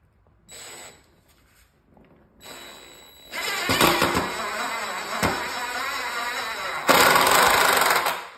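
Cordless DeWalt impact driver driving a coated deck screw into a 2x4. A brief spin and a second short run come first, then a long stretch of rapid hammering with a high ringing rattle, which gets louder about seven seconds in and stops just before the end.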